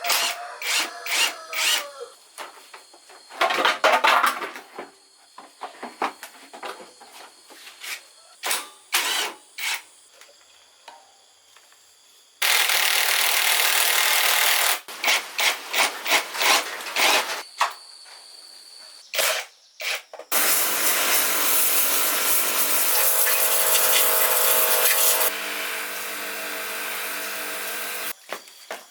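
Workshop work on motorcycle parts: a run of sharp clicks and knocks of hand tools on metal, with two long stretches of a steady power-tool noise, the second of them with a steady hum beneath.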